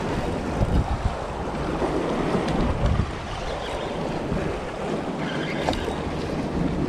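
Wind buffeting the microphone with a fluctuating low rumble, over sea waves washing against rocks.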